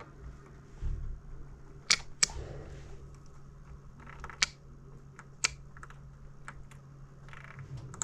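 Sharp clicks, four loud ones in the first six seconds and a few fainter ones after, over a steady low hum: a Toyota Duet's VVT oil control valve being switched as power is put to its leads to test it.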